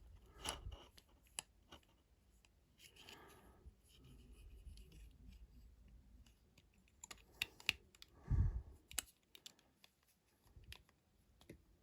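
Faint clicking and clattering of plastic Lego pieces being handled, with a louder low thump about eight seconds in.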